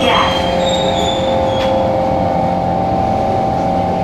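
Singapore Circle Line MRT train heard from inside the passenger car: a steady rumble under several held whining tones, with a fainter high-pitched squeal.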